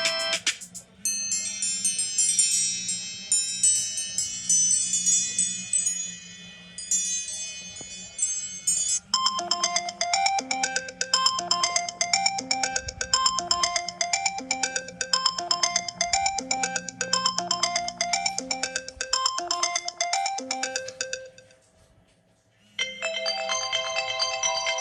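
iPhone 5s ringtones playing one after another. First comes a high, sparkling run of chime-like notes. Then a repeating rhythmic melody of short notes plays, and after a brief pause near the end a new tone begins.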